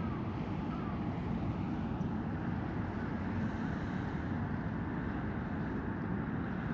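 Steady low rumbling background noise with no distinct event.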